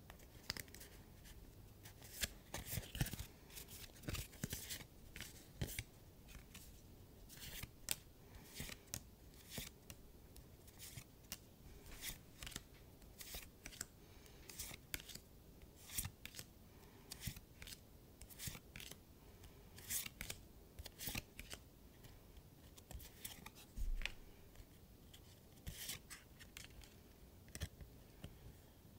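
Trading cards being handled: cards slid off a hand-held stack one at a time, each a short papery swish or flick, irregular, about one or two a second.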